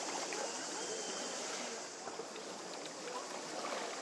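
Calm sea water lapping gently at the edge of a pebble beach, a steady wash.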